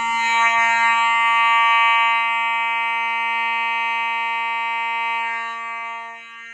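Simplex fire-alarm horn strobe sounding one loud, continuous buzzy horn tone, which drops somewhat in level near the end.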